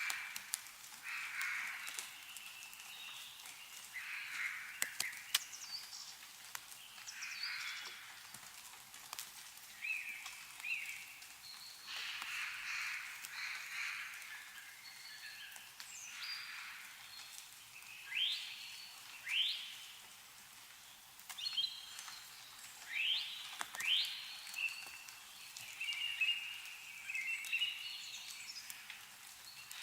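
Songbirds calling and chirping in short repeated phrases, with several quick rising upswept notes in the second half. Scattered sharp ticks of meltwater dripping from snow-laden trees.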